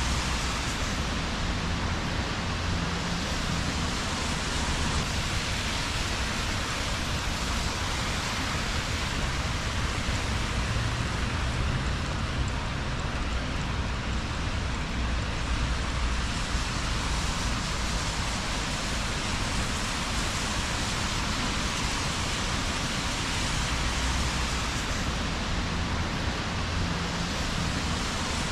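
Steady rain falling on wet city streets, an even hiss, with a low rumble underneath that swells and fades.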